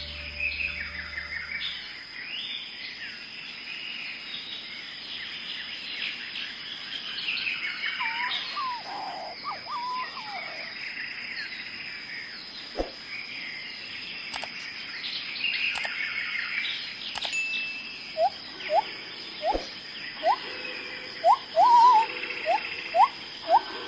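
Forest birdsong: several birds chirping and trilling together, with a steady high tone beneath. From about three quarters of the way in, a lower short rising call repeats, a little over once a second.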